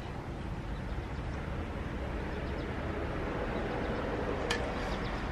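Steady low background rumble with one sharp click about four and a half seconds in.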